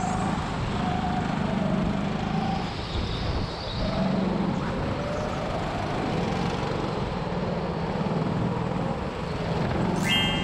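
Go-kart running at speed around an indoor track, heard from the driver's seat: a steady motor hum that swells and eases through the corners, with the rush of the tyres on the smooth concrete floor.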